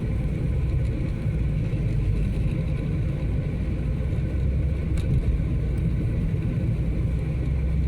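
Car driving on snowy roads, heard from inside the cabin: a steady low rumble of engine and tyres, with one faint click about five seconds in.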